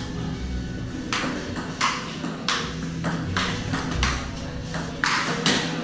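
Table tennis rally: a celluloid ping pong ball clicking sharply off paddles and table, a quick run of about a dozen hits starting about a second in.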